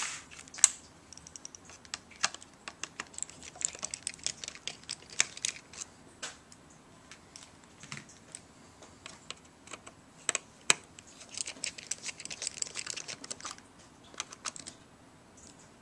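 Small precision screwdriver working screws out of a MacBook Pro logic board: irregular light metal clicks and short scratchy scraping, with sharper ticks about half a second in and near eleven seconds in.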